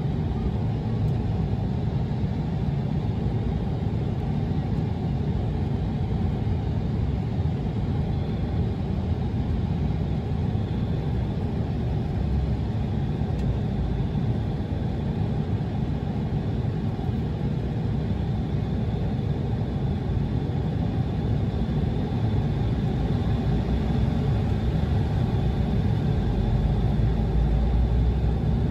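Embraer E175's turbofan engines and airframe heard from inside the cabin as a steady, loud, low rumble with a faint high whine, at the start of the takeoff. The rumble and whine grow louder over the last several seconds.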